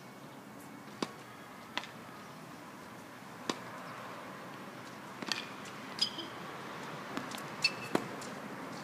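Tennis balls struck by rackets and bouncing on a hard court: a string of about eight sharp pops at uneven spacing, some with a brief ring of the strings.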